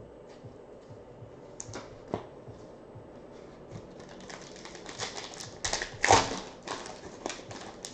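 Faint clicks of trading cards being handled, then the foil wrapper of a Bowman Sterling baseball card pack crinkling as the pack is opened from about four seconds in, loudest around six seconds.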